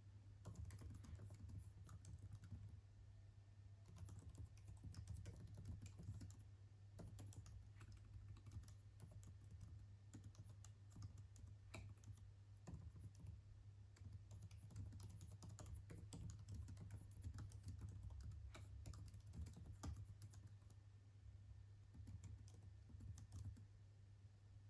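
Typing on a computer keyboard: faint bursts of quick key clicks with short pauses between them, over a low steady hum.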